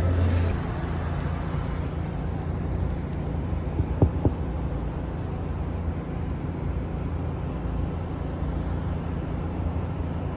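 Steady low engine hum and rumble inside a truck's cab, with two sharp clicks about four seconds in.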